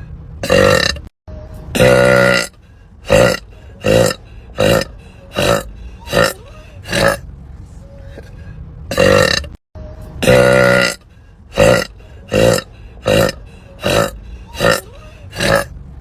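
A woman burping over and over, about fifteen short burps in quick succession with two longer, drawn-out ones among them.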